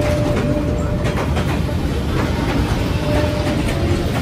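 Vietnam Railways passenger train passing at very close range: a steady low rumble of the carriages, with the wheels clicking over the rail joints.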